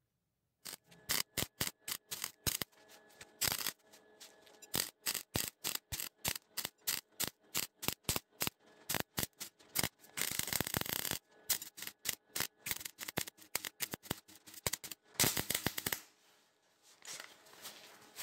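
MIG welder laying weld onto the edge of a steel tine in many short tacks, each a quick burst of arc crackle. There are two longer runs of about a second each, followed by a fainter stretch of noise near the end.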